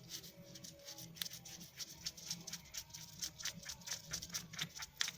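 Rapid, light clicking, about four to six clicks a second and uneven in strength, from hand tools and steel bolts being worked out of a Delphi CA3 AC compressor housing.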